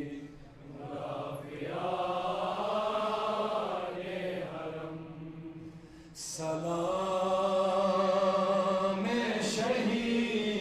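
A man's solo voice chanting a devotional salutation to martyrs in long, drawn-out sung notes. It comes in two long phrases, with a brief drop between them about five seconds in.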